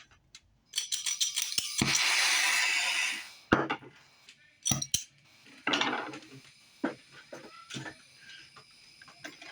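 Small metal tools and pieces clinking and knocking on a jeweler's workbench, a run of separate sharp clinks, with a brief rushing hiss lasting about two seconds near the start.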